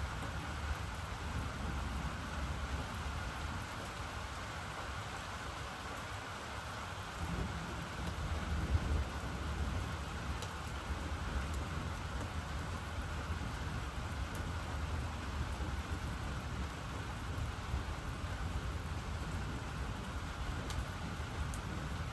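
Steady rain falling with rolling thunder. A low rumble of thunder swells about seven seconds in and is loudest around nine seconds.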